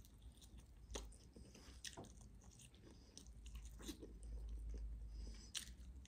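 Faint, close-miked chewing and biting of roast chicken drumstick meat: scattered wet mouth clicks and smacks as the meat is bitten and torn from the bone. A low rumble comes in about halfway through.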